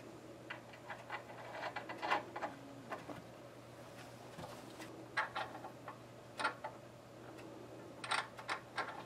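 Light metallic clicks and ticks of a wrench, nuts and washers as bolts are tightened through a wooden loom frame, coming in a few irregular clusters.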